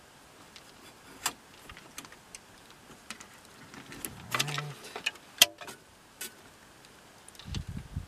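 Scattered small clicks, ticks and rattles of wire connectors and plastic parts being handled as the propane fridge's control-board wiring is unplugged, with the sharpest snap about five seconds in.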